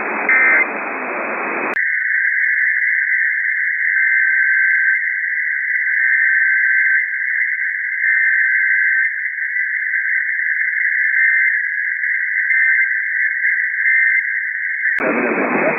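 EAS-style digital data tones: a fast two-pitch electronic warble, like a SAME header burst, starting sharply about two seconds in and cutting off suddenly near the end. Radio static hiss comes before and after it.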